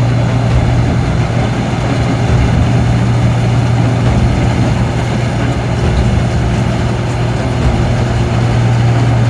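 Combine harvester's diesel engine running steadily, with a strong, even low hum.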